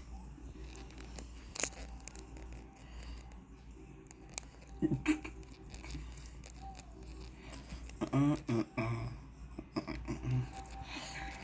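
Faint music with scattered small clicks. A short voiced sound, like a hum, comes about eight seconds in.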